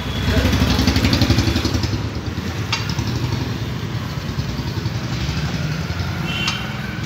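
A motor vehicle engine running steadily close by, a low pulsing rumble that is loudest in the first two seconds. Two short metallic clinks are heard, one near the middle and one near the end.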